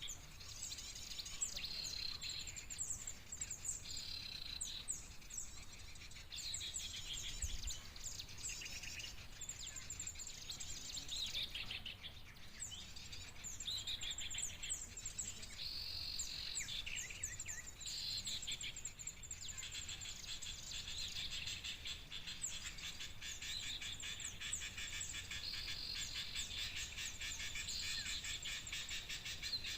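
Busy, rapid chirping and twittering of small birds, the sound of a bird-lure recording of noisy small-bird and bulbul calls played to draw in common ioras. A steady buzzing trill joins in for the second half.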